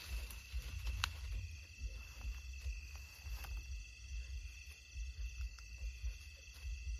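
Night insects chirring steadily in several high, even tones, over a low rumble, with a sharp click about a second in and a few faint rustles.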